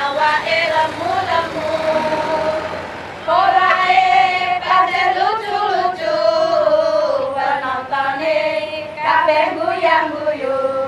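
A marching troupe of women singing a marching chant together in unison, phrase after phrase, with a brief pause about three seconds in.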